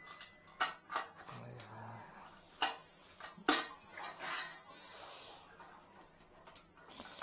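Irregular sharp clicks and clinks of a drain cable tool knocking and scraping against a porcelain toilet bowl as it is worked into the trap to grab a jammed sponge.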